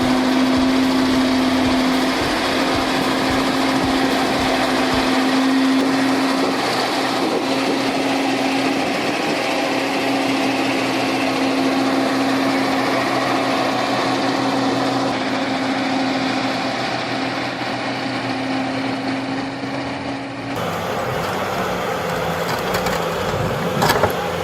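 Truck engine held at high, steady revs, its pitch nearly constant, while the truck struggles through mud. About twenty seconds in, it gives way abruptly to a different, rougher engine sound, with a short knock near the end.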